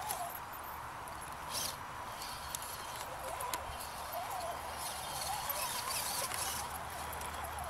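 Axial SCX10 RC crawler's electric motor and geartrain whining faintly and wavering in pitch as the throttle is worked on a steep climb, with scattered sharp clicks.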